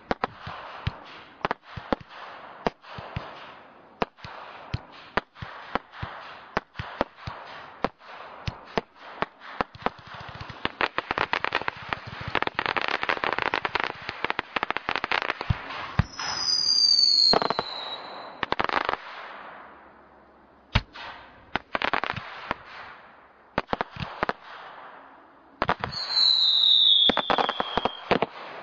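Brightstar 'Dynasty' multi-shot firework going off: a rapid, irregular run of bangs over crackling that grows dense around the middle. Two whistles falling in pitch sound, about halfway through and again near the end.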